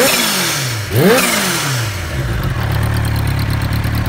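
Kawasaki Ninja H2's supercharged inline-four revved in neutral: a blip falling back, one more sharp rev about a second in, then settling to a steady idle from about two seconds in. A hiss rides over the revs as the throttle shuts, the venting of its aftermarket TurboSmart blow-off valve.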